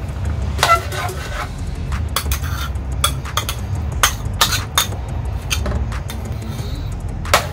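A metal ladle clinking and scraping against a ceramic plate and the rim of a stainless steel pot while tomato paste is scooped in: a series of sharp clinks, the loudest near the end, over a steady low hum.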